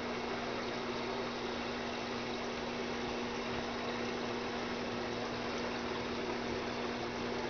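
Aquarium filter running: a steady hiss of moving water over a low, even hum.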